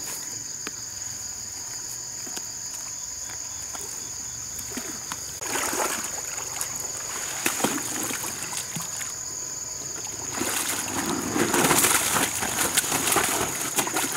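Pond water splashing and sloshing as a man wades among net enclosures, starting about five seconds in and loudest between about ten and thirteen seconds. Under it runs a steady high-pitched insect drone.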